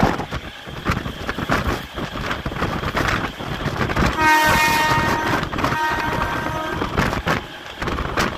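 MEMU electric train's horn sounding once about four seconds in, loudest for the first second, then held more faintly for about two seconds more. Underneath it runs the rumble and clatter of the train's wheels on the rails, with wind on the microphone.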